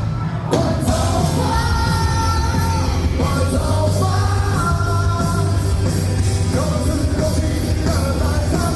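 Live rock band playing, with a singer's voice carrying long held lines over a steady bass.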